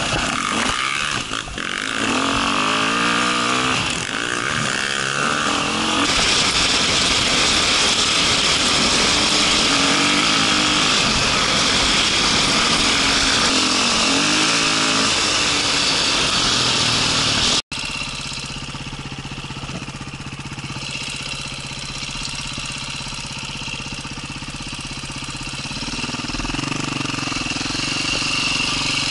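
Enduro motorcycle engine revving up in pitch several times, then holding steady at high revs while riding. After an abrupt cut about two-thirds through, it runs lower and more evenly, climbing again near the end.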